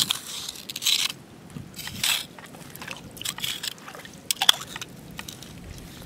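Shallow tide-pool water splashing and sloshing as a hand and a pair of long metal tongs rummage through it, in short bursts about once a second, with some scraping.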